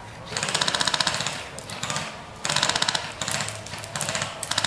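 Airsoft electric rifles firing full-auto bursts: rapid, evenly spaced clacks, three bursts of about a second each.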